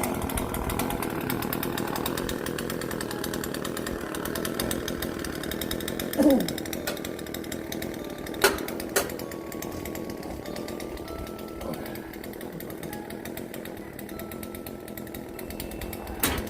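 John Deere 6115R tractor's diesel engine running steadily, slowly getting quieter, with a short sliding scrape about six seconds in and two sharp clicks soon after. The engine is being run to warm the oil so that it drains fully.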